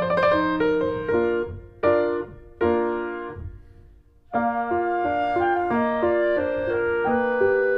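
Background piano music, a melody over chords. About two seconds in it breaks into a few separate chords that fade almost away, then steady playing resumes just after four seconds.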